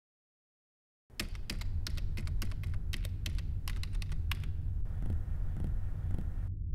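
Typing on a computer keyboard: a quick run of key clicks starting about a second in and thinning out in the last couple of seconds, over a steady low hum.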